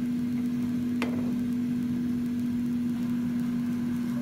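A steady low mechanical hum, even in pitch throughout, with one light knock of a wooden spatula against the pan about a second in.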